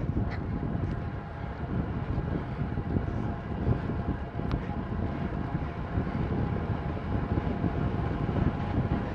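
Wind rushing and buffeting over the microphone of a helmet camera on a bicycle descending a mountain road at speed, with a faint steady hum underneath.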